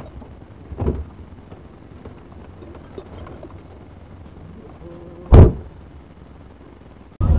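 Low background noise with a soft knock about a second in and one loud, heavy thump about five seconds in.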